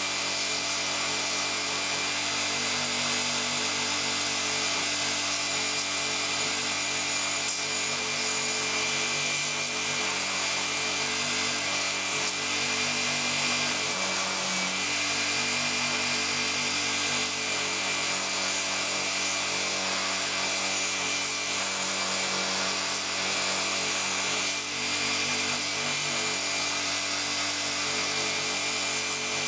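Belt grinder running with the steel iron of a Bailey No. 4 hand plane held against the moving belt: a steady abrasive grinding hiss over the motor's hum.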